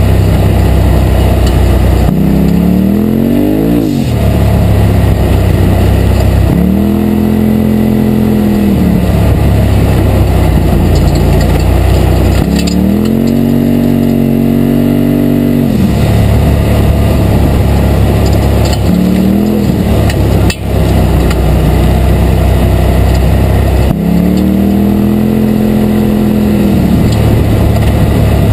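2017 Polaris RZR Turbo's turbocharged twin-cylinder engine heard from the cab while driving, revving up and easing off with the throttle several times, each rise a climbing pitch that then levels and drops back.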